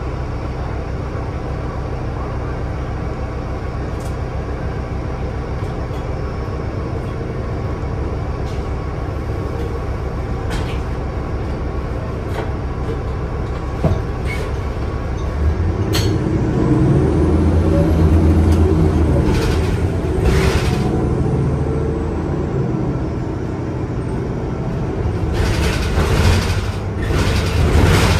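Inside a NovaBus LFS CNG city bus: the Cummins ISL-G 8.9 L six-cylinder natural-gas engine runs steadily with a few clicks and knocks. About halfway through it gets louder and its pitch rises and falls. Short hissing bursts of air brake release come near the end.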